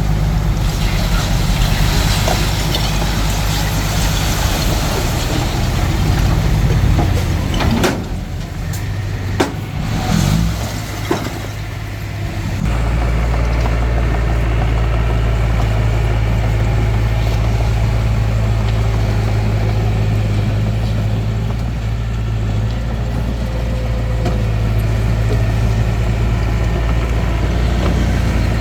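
Hitachi DX45M bulldozer's diesel engine running steadily under load. About eight seconds in it eases off for a few seconds, with a few sharp clanks, then comes back up strongly around twelve seconds in.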